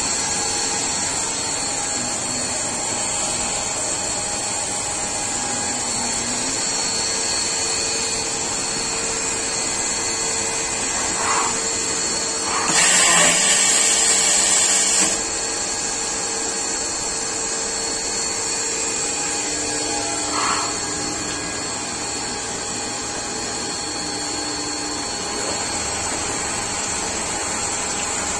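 Falcon CNC lathe and its automatic part loader running with a steady machine drone and several constant tones. About 13 seconds in, a loud hiss lasts about two and a half seconds, with a short blip shortly before and another about 20 seconds in.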